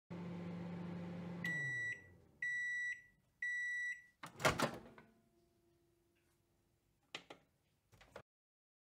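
Microwave oven running with a steady hum that winds down, then three high beeps about a second apart signalling that the cooking time is up. A loud clunk follows as the door is opened, then two short clicks near the end.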